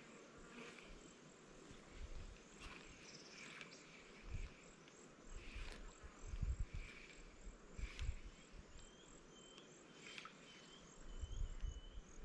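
Soft knocks and rustles of a spinning reel being handled close up to clear a tangled line, over faint chirping insects. A short chirp repeats evenly over the last few seconds.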